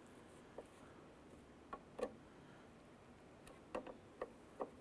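Light, scattered clicks and taps of small plastic and metal mirror-base parts being handled and fitted together, with about seven clicks in all and several coming close together near the end.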